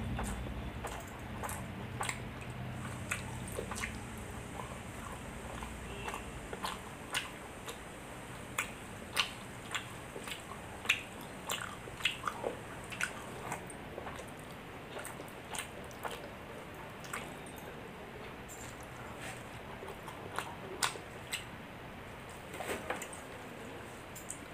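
A person eating close to the microphone: wet chewing with sharp smacking clicks at irregular intervals, a mouthful of milk rice with chickpea curry, mashed potato and fried aubergine.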